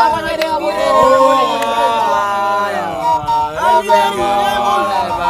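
Several voices singing an Otuho (Lotuko) song from South Sudan, holding and bending notes in a chant-like melody.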